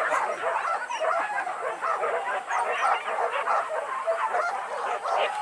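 A pack of hunting dogs baying and yelping together, many short calls overlapping without a break.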